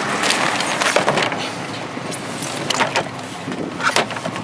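Rummaging in a plastic wheeled garbage bin: rustling, with several sharp knocks and clatters as a metal-edged picture frame is shifted and pulled out.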